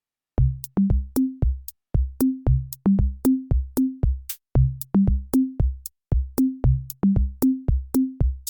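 Background music: an electronic drum-machine beat with kick drum, sharp percussive clicks and short bass notes, starting about half a second in.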